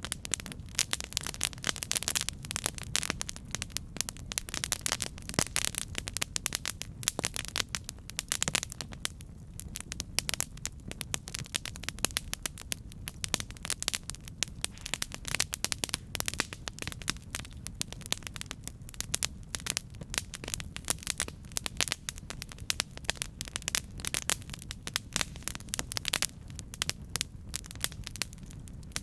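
Campfire burning with dense, irregular crackling and popping of wood over a steady low rumble.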